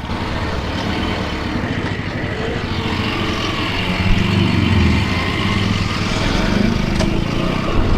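Motorcycle engine running with a steady low pulsing, mixed with wind noise rushing over the microphone; the sound grows slightly louder as it goes.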